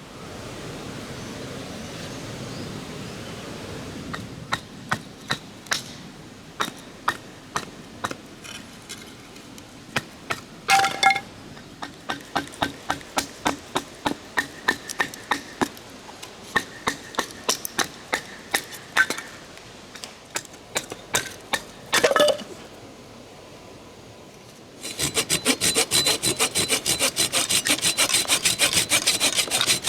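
Wood being worked by hand: scattered sharp scraping strokes and clicks, then, from about 25 seconds in, a quick, even run of hand-saw strokes cutting through wood.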